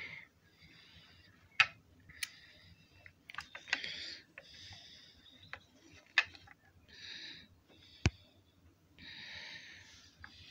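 Handling noise from a toy car being turned over in the hands: a few sharp clicks and taps, with soft hissing rustles between them.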